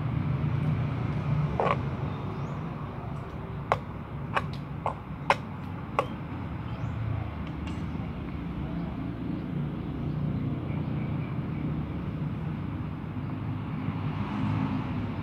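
Steady low rumble of background traffic, with about five sharp clicks between about four and six seconds in.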